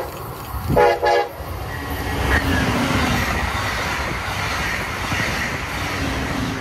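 Brightline push-pull passenger train sounding its horn in two short blasts at the very start, then rushing past with steady wheel-on-rail rolling noise, which begins to fade near the end as the rear locomotive goes by.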